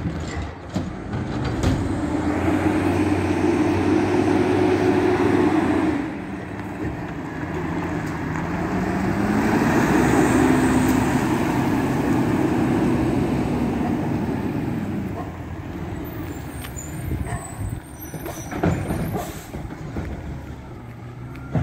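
Mack LEU garbage truck's diesel engine held at a steady high pitch for a few seconds while the Curotto Can arm works, dropping back about six seconds in. It then rises in pitch as the truck accelerates past and fades as it drives away.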